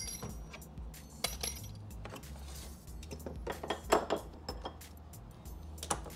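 Metal lathe parts clinking and knocking as they are handled: the tool post and cross slide being lifted off a mini lathe's bed. A handful of sharp clinks, the loudest about four seconds in.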